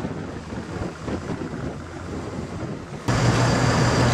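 Wind buffeting the microphone over a low rumble. About three seconds in it cuts abruptly to a louder, steady low engine hum.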